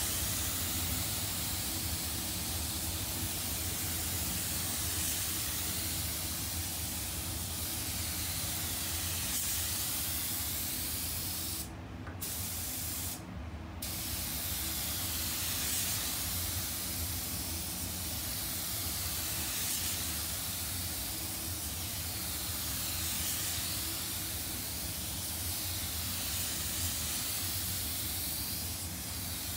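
Compressed-air paint spray gun hissing as it lays a wet coat of basecoat, the hiss swelling and fading regularly with each pass. The trigger is released twice for a moment near the middle.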